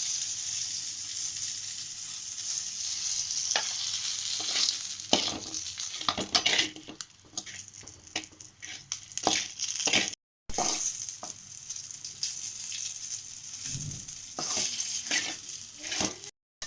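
Chicken legs sizzling in hot frying oil in a pan. From about five seconds in, a utensil scrapes and clicks against the pan as the pieces are moved, and the sound cuts out briefly twice.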